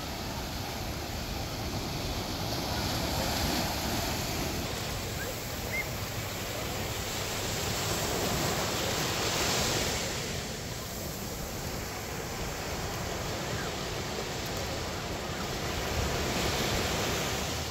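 Ocean surf: small waves breaking and washing up over the sand in a steady rush, swelling louder three times, a few seconds in, around the middle and near the end.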